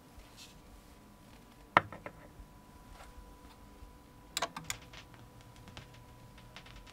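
Clicks from a turntable's controls: one sharp click about two seconds in, then a quick run of clicks about four and a half seconds in as the deck's PLAY button is pressed. Faint hum and the odd tick from the record sit under them.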